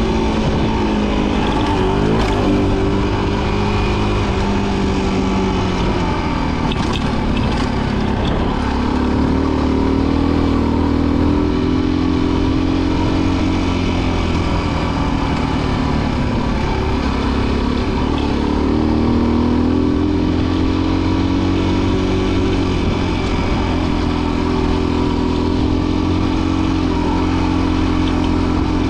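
Rieju Marathon Pro 125 enduro motorcycle's engine running while riding, its revs repeatedly dropping off and climbing again as the throttle is worked.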